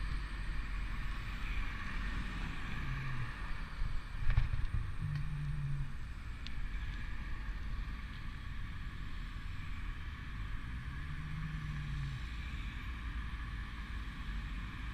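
Wind rumbling on the microphone of a camera carried along the road, over the noise of passing car traffic. A sharp bump about four seconds in is the loudest moment.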